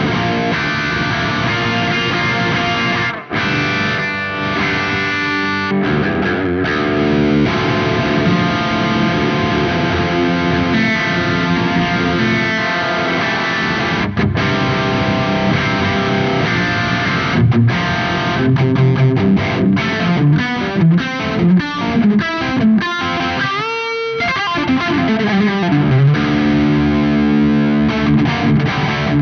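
Distorted electric guitar played through a Soldano SLO100-clone tube amplifier head. The riff runs continuously with a short break about three seconds in, turns choppy and stop-start past the middle, and has a quick rising slide about four-fifths of the way through.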